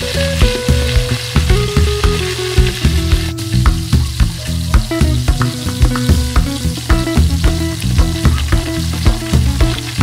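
Pork sizzling as it fries in a pan, over background music with a steady beat.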